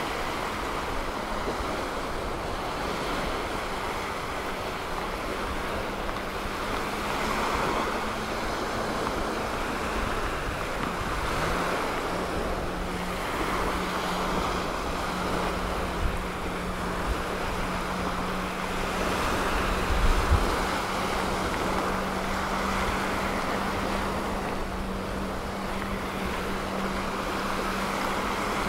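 Small Gulf waves washing onto a sandy beach, surging and easing every several seconds, with wind on the microphone. A steady low motor hum runs underneath and steps up slightly in pitch about eleven seconds in.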